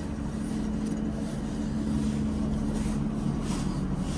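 Diesel passenger train running with a steady low hum and drone.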